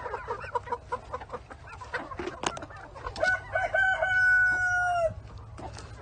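Native chickens clucking in short repeated notes, then a rooster crows once about three seconds in, a call of about two seconds that dips at its end.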